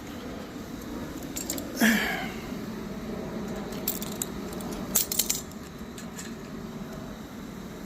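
Metal hardware clinking as a new dolly wheel is fitted onto its steel axle: one loud ringing clank about two seconds in, then a cluster of lighter metallic clicks a few seconds later.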